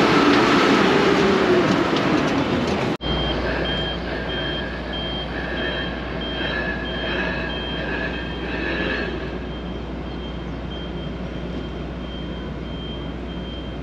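A loud rushing noise with a wavering hum cuts off suddenly about three seconds in. It gives way to a steady low machinery hum with a regular series of short, high electronic beeps like a reversing alarm, which grow fainter near the end.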